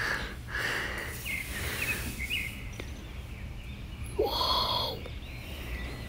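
Outdoor background noise with a steady low rumble and a few faint, short bird chirps about a second or two in. About four seconds in there is a brief, louder rising-and-falling sound.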